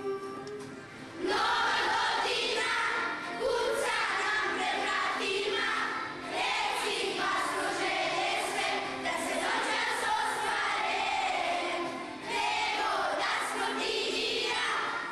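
A group of children singing together: a held note fades out in the first second, then the whole group comes in louder and keeps singing.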